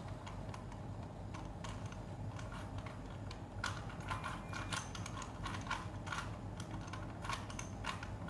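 A rusty 3×3 Rubik's cube, not a speed cube, being turned by hand, its layers clicking and clacking in quick, irregular turns over a steady low hum.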